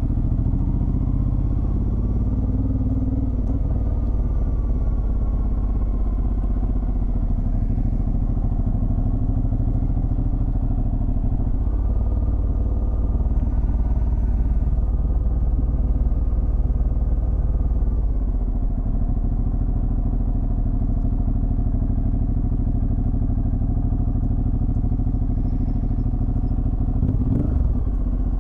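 Ducati Multistrada DVT's V-twin engine running as the motorcycle is ridden, its note rising and falling with the throttle and pulling harder for several seconds around the middle. A brief clatter near the end.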